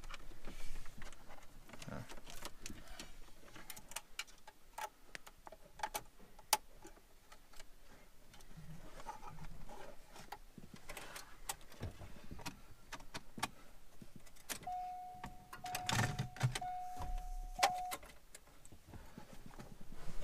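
Clicks and light rattles of wiring connectors and a car radio's metal chassis being handled while its plugs go back into the dash harness. About three-quarters of the way through, a steady electronic beep sounds for about three seconds, broken once.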